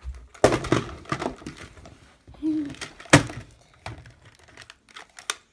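Handling noise: rustling and knocking as a plastic toy dinosaur and fabric are moved about, with a few sharp knocks, the loudest about three seconds in.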